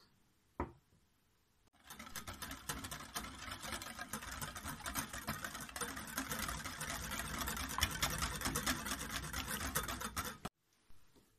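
Wire balloon whisk beating a thin liquid batter of egg, sugar, milk and oil in a glass bowl: a run of rapid, even strokes that starts about two seconds in and stops suddenly near the end, after a single light tap just before.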